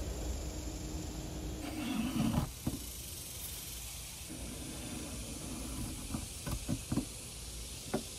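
Bronze beading plane being pushed along a wooden post, cutting a groove: hissing strokes of the blade through the wood, the loudest about two seconds in, with a few short sharp knocks of wood and tool later on.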